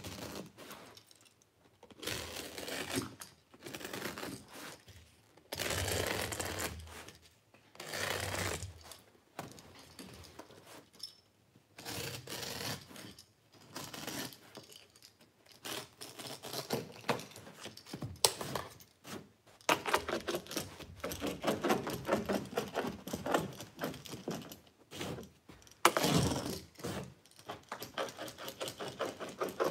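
Utility knife trimming carpet along a wall: a run of short noisy cuts through the carpet, each a second or two long, then quicker scratching and clicking as the blade and hands work along the baseboard.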